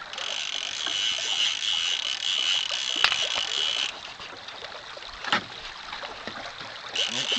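Fishing reel's click ratchet buzzing as line runs through it: one spell of about four seconds that cuts off sharply, then another starting near the end, with a couple of sharp clicks between.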